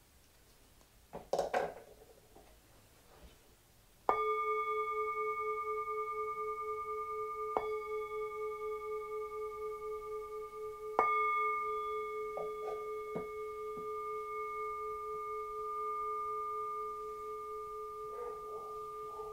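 Metal singing bowl struck with a mallet three times, about four, seven and a half and eleven seconds in, the second strike the softest; each time it rings on in a long, slowly wavering tone with higher overtones above it. A short rustling noise comes about a second in, before the first strike.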